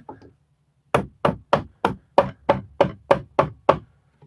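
A mallet striking a pallet-wood board in a rapid, even series of about a dozen knocks, roughly four a second, starting about a second in: the tight-fitting board is being driven into place.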